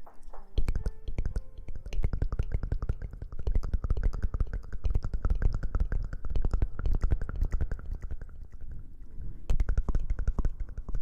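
ASMR rustling and scratching right against the microphone: a dense stream of rapid crackles and taps with a heavy low rumble, starting about half a second in and easing briefly near the end before picking up again.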